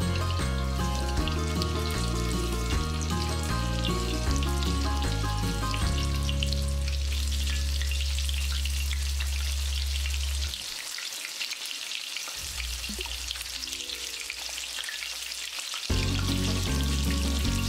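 Breaded chicken donuts deep-frying in hot oil, a steady crackling sizzle of bubbling oil. Background music with a bass line plays over it and drops away for about five seconds in the second half.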